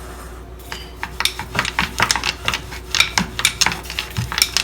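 Rolling pin working dough thin on a rolling board, making quick, irregular clicks and taps, several a second, that start about a second in.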